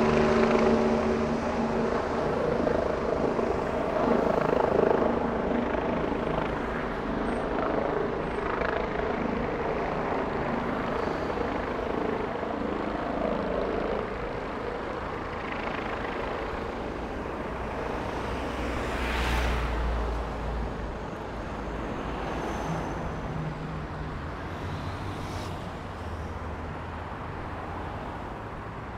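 Street traffic on a busy multi-lane city avenue, cars and motorcycles passing steadily. An engine drone fades away over the first several seconds. A heavy vehicle rumbles past about two-thirds of the way through.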